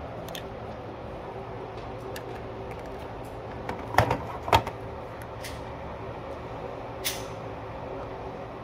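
A Glock pistol and its plastic case being handled: two sharp clacks about half a second apart near the middle and a lighter click later, over a steady background hum.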